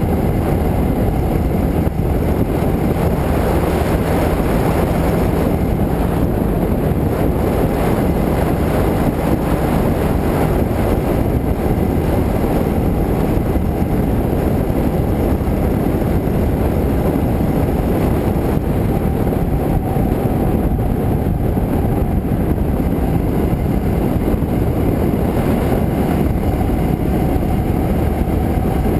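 Motorcycle cruising at a steady speed. The engine's drone blends into a loud, even rush of wind and road noise on an action camera's microphone.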